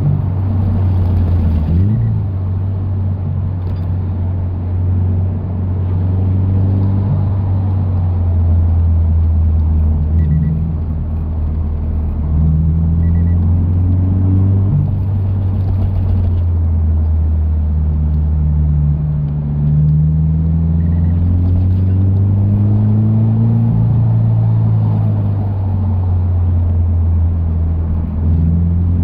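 Toyota 86's flat-four engine through a BE FREE aftermarket muffler with its silencer fitted, heard from inside the cabin while driving. There is a deep steady drone, and the engine note rises and falls as the revs change. Wind noise comes in through the open windows.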